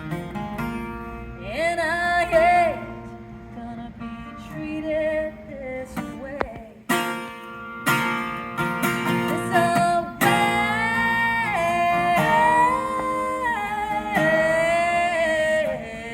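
Live solo performance: a plucked acoustic guitar with a woman's sung or held vocal lines that bend and waver over it.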